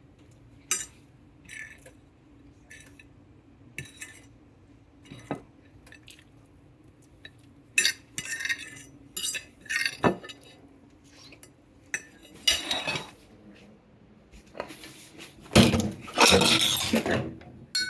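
Dishes and cutlery being handled: scattered clinks and clatters of plates and utensils, with a louder, longer rattle near the end. A faint steady hum runs underneath.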